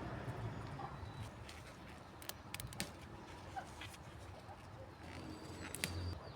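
Faint bird calls, a few short chirps and a thin whistle, over a low steady rumble, with several sharp clicks about two seconds in and again near the end.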